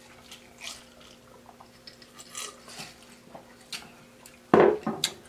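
Quiet drinking sounds from a glass mug: faint sips, swallows and small liquid sounds. Near the end a man's voice sounds briefly and loudly.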